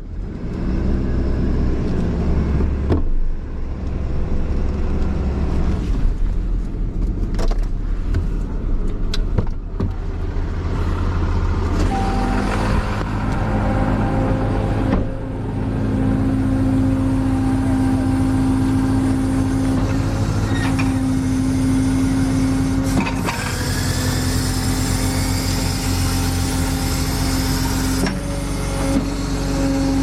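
Truck engine running steadily, with several sharp knocks in the first ten seconds. From about twelve seconds in, a steady higher-pitched drone joins it.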